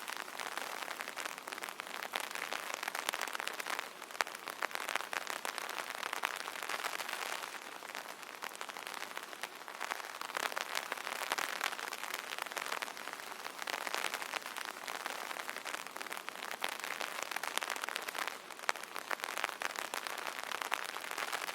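Rain falling on an umbrella: a dense patter of drops that swells and eases every few seconds.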